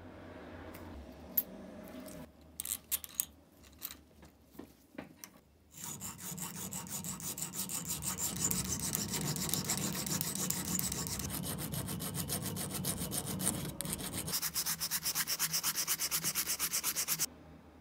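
A hand file scraping over a small rusty steel pepper-grinder part, after a few scattered scrapes and clicks. About 14 s in it changes to fast, even back-and-forth sanding with abrasive cloth, about six strokes a second, which stops suddenly.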